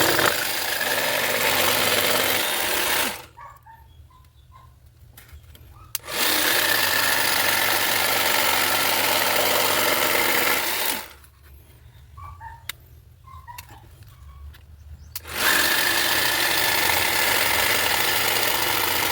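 A Bosch GST 12V-LI cordless jigsaw cuts a piece of wood that is not held firmly in place. It runs in three bursts of several seconds each, with short pauses between them.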